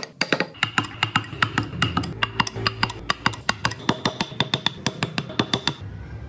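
Rapid, irregular sharp taps of a carving chisel being struck into wood, several a second, stopping about a second before the end and leaving a low hum.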